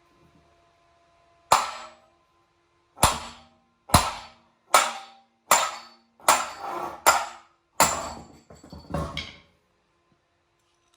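Hammer blows on a steel 1/2-inch socket extension set against a BMW rear wheel hub, driving the hub out of the wheel bearing. There are about nine sharp metal strikes, each with a brief ring, the first about a second and a half in and the rest coming a little faster than one a second.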